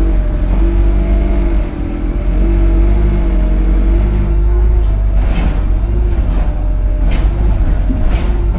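Single-deck bus (an Alexander Dennis Enviro200 MMC) running under way, heard from inside the passenger saloon: a steady low engine rumble with a humming drivetrain tone that wavers a little in pitch. A few sharp rattles or knocks come in the second half.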